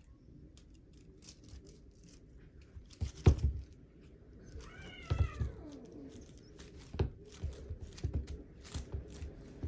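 Exotic Shorthair kitten giving one short meow that falls in pitch, a little before halfway, among scattered knocks and thumps, the loudest of them a little after three seconds in.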